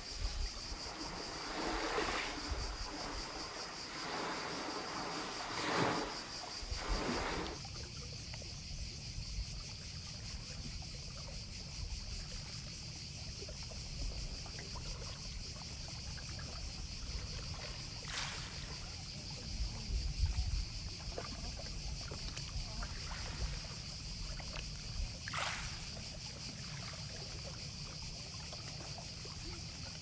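Small Aegean Sea waves washing and lapping at the shore, with several splashy surges in the first seconds and two more later on, over a steady high-pitched hiss and a low rumble.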